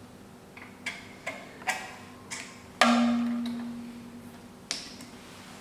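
Small metal parts of a key cutting machine being fitted by hand: a string of light clicks, then a sharper metal knock about three seconds in that leaves a low ring fading over about two seconds, and one more click near the end.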